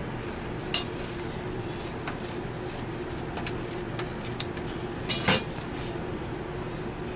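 Light scraping, crackling and clicking as crisp waffles are handled and their edges trimmed with a serrated knife, over a steady hum. A sharper knock or clack comes about five seconds in and is the loudest sound.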